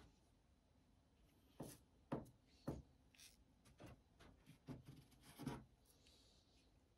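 About eight small plastic clicks and taps from handling a small JB Weld adhesive tube, its cap and tip pressed against paper on a wooden bench, spread over about four seconds against near silence.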